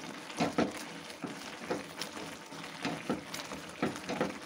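Metal masher pressing and scraping through wet grated carrots cooking in milk in a steel pan: irregular soft knocks and scrapes about twice a second over a steady hiss.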